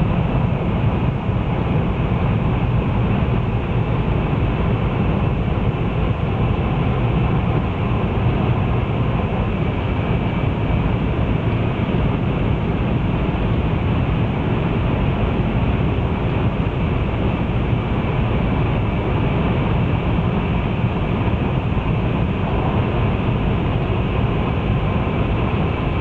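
Steady rumble of a Taiwan High Speed Rail train running, heard inside a passenger car, with faint steady whining tones above the low noise.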